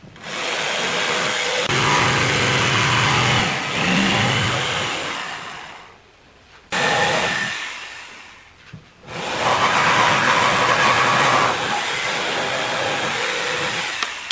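A loud motor running, heard three times. It builds up and fades away, comes in suddenly and winds down, then builds again and holds steady until it cuts off.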